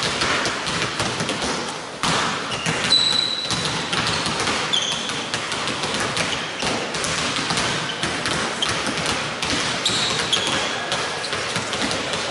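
Several basketballs being dribbled on a hardwood court, an irregular overlapping patter of bounces, with a few short high squeaks of sneakers on the floor.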